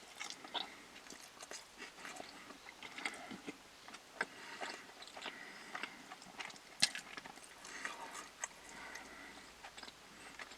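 A person chewing and biting food close to the microphone, with irregular small clicks and crunches: mukbang-style eating of a fast-food meal.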